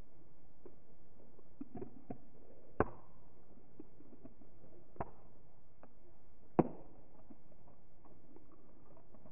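Two cats eating dry kibble from one bowl: soft crunching and small ticks of chewing, with a few sharper clicks, the loudest about a third of the way in and again about two-thirds in.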